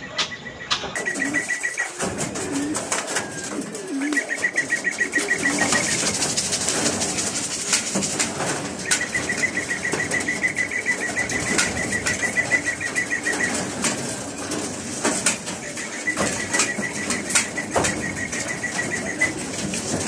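Racing pigeons flapping their wings as they land and move about in a wire-mesh loft trap, with many sharp flaps and knocks. Runs of rapid high beeping come and go four times.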